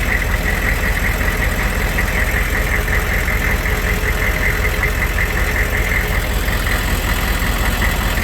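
Diesel engine running steadily at idle, with a constant low rumble.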